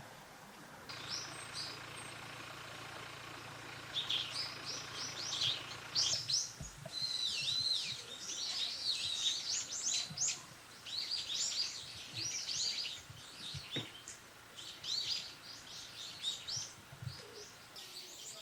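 Brown-eared bulbuls calling: shrill, sweeping calls, one after another and overlapping, faint at first and loud and nearly continuous from about four seconds in.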